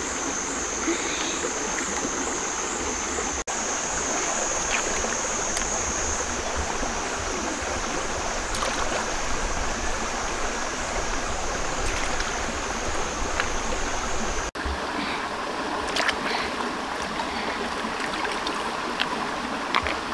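Shallow stream water running and trickling over rocks. A steady high-pitched buzz stops about two-thirds of the way through, and a few small splashes and ticks follow.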